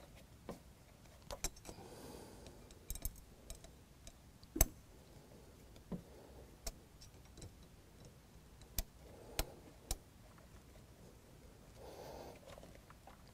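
About a dozen light, irregular clicks and ticks, the loudest about four and a half seconds in, as a hex key is worked in the Allen bolts of a convertible-top hydraulic pump. The bolts are being snugged down a little at a time, each in turn.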